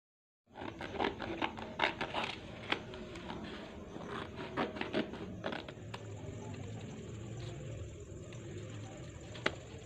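Scissors snipping through a glossy printed paper sheet: quick clusters of sharp cutting clicks in the first few seconds, then quieter rustling of the paper with a single snip near the end.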